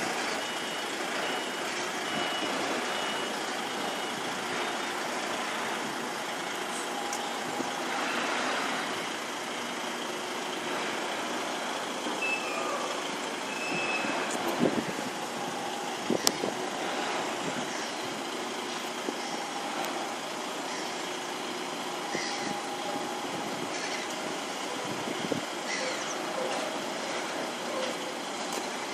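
DAF XF semi-truck reversing slowly with its engine running at low revs, a reversing beeper giving short repeated beeps near the start. A couple of brief sharp sounds stand out about halfway through.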